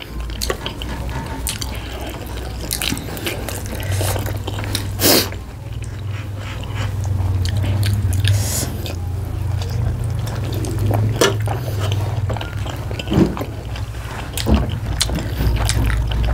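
Close-miked eating sounds of pork momos being bitten and chewed: wet mouth smacks and irregular short clicks, over a low steady hum.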